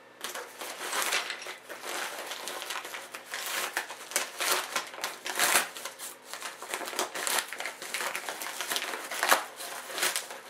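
Plastic packaging crinkling and rustling as parts are unpacked and handled, with irregular crackles and small clicks throughout.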